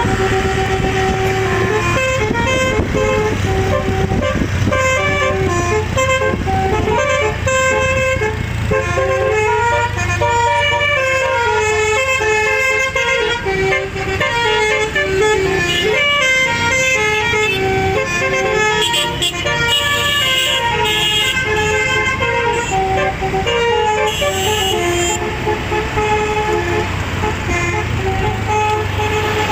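Six-note telolet horn on a front-engined Mercedes-Benz bus playing long runs of quick notes, stepping up and down in rising and falling cascades, over the steady hum of the bus.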